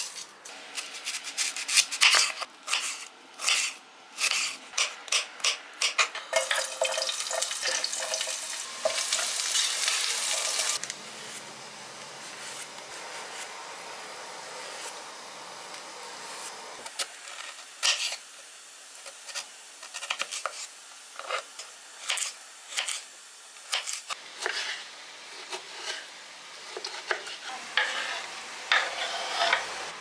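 Kitchen vegetable prep: a hand vegetable peeler scraping strips off a squash in many short strokes, amid clicks and knocks of produce and utensils being handled. About six seconds in, a louder steady hiss runs for several seconds.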